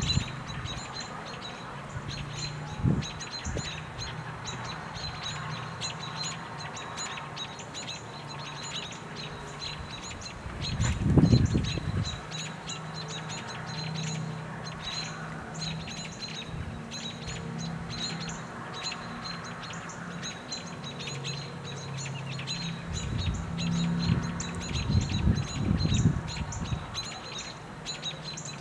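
Small birds chipping: a rapid, continuous run of short high chip notes. Under them runs a low, broken hum, and a loud low rumble comes about eleven seconds in and again near the end.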